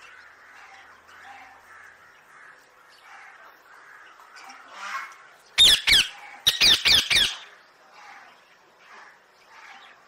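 Caged parakeets squawking: a loud, shrill pair of calls about halfway through, then three or four more in quick succession, over softer bird calls throughout.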